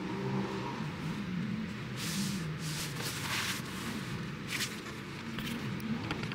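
Cardboard boot box being handled and moved, with rustling scrapes about two to three and a half seconds in and short ones later, over a low steady drone.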